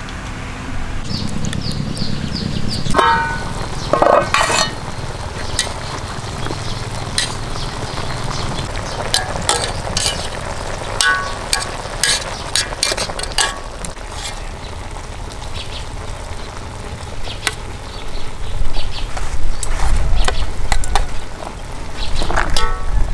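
Aluminium pot of chicken and cabbage simmering with a steady hiss, while metal tongs click and knock against the pot many times.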